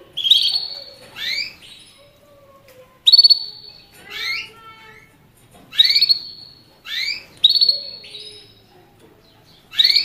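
Canary calling again and again: about eight short calls, each a quick upward sweep ending on a brief held high note, one every second or two.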